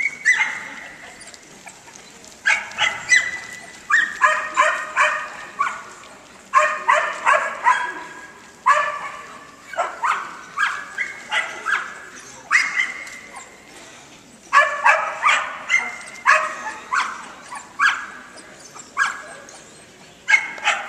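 A Border Collie barking in repeated volleys, several quick, high-pitched barks at a time with short pauses between.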